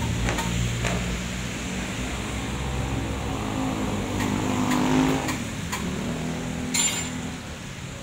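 A motor vehicle engine running nearby over a steady low hum, its pitch and loudness rising to a peak about five seconds in, then fading. A few light clicks and a brief hiss near the end.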